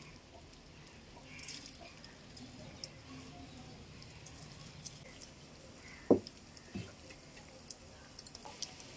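Onion pakodas deep-frying in hot oil in a steel kadai, a faint sizzle with small crackles and pops as the batter is dropped in. A sharp knock about six seconds in, and a weaker one shortly after.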